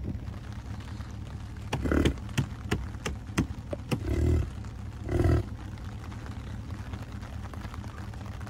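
American bison grunting: three short, deep grunts about two, four and five seconds in, with scattered light taps around them.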